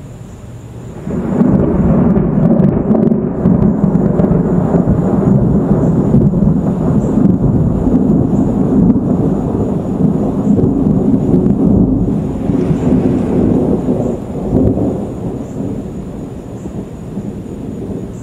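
Thunder from a dry thunderstorm, with no rain: a long, low rolling rumble that starts abruptly about a second in, stays loud for over ten seconds, then fades out toward the end.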